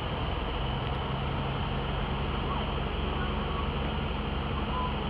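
Small high-wing airplane's engine and propeller droning steadily, heard from inside the cabin.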